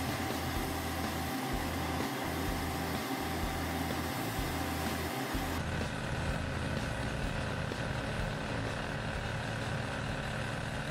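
Slipform concrete paver's diesel engine running steadily, a constant machinery hum with no break, its tone shifting slightly about halfway through.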